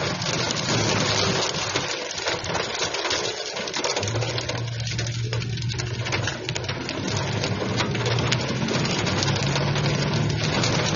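Heavy rain mixed with hail pelting a car's roof and windshield, a dense, continuous patter of hits, heard from inside the cabin. The car's engine runs underneath as a low hum, which fades out briefly about two seconds in and returns at about four seconds.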